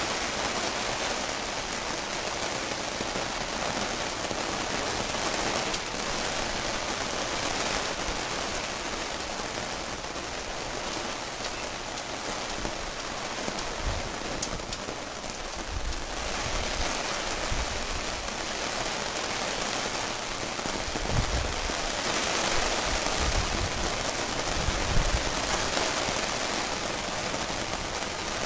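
Heavy rain falling steadily, with a few brief low thumps in the second half.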